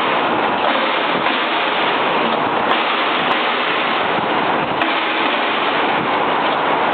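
Toothpick packaging machine running: a steady, loud mechanical noise with no clear rhythm.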